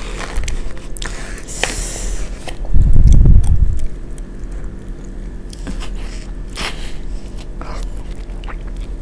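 Close-up wet eating sounds from a barbecue-sauced fried chicken wing: sticky finger-licking and lip smacks, then biting and chewing, with scattered short clicks. A loud low thump comes about three seconds in.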